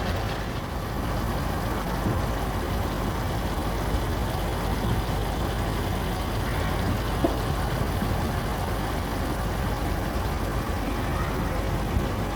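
Minced beef, pepper and onion sizzling steadily in a non-stick frying pan, the freshly added cold water hissing off. A couple of light clicks, one about seven seconds in and one near the end.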